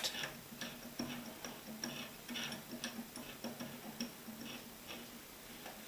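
La Gard three-wheel mechanical combination lock dial being turned to the left, giving a string of faint, irregular clicks and ticks, several a second, that thin out near the end.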